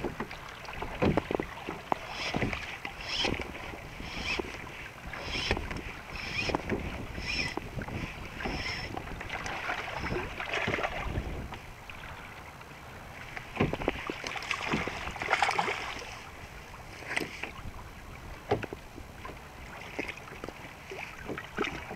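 Water slapping and knocking against an Ocean Kayak's plastic hull, with wind on the microphone. A run of short, evenly spaced ticks, about one and a half a second, comes in the first half.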